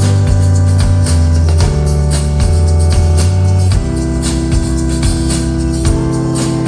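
Live rock band playing: drums with regular cymbal strokes over long, held bass and keyboard notes that change chord every second or two.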